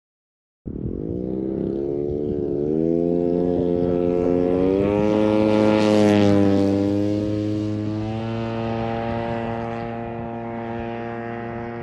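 Propeller aircraft engine running with a steady pitch that shifts slightly. It starts abruptly about a second in, grows louder to a peak about halfway through, then slowly fades.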